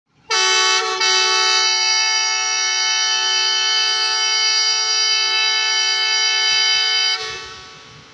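Pakistan Railways ZCU-20 diesel locomotive's air horn giving one long, loud multi-tone blast of about seven seconds, with a brief dip about a second in. It is the starting signal for the train's departure.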